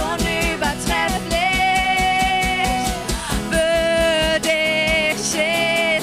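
Worship song played by a band with a steady beat, a singer holding long notes over it.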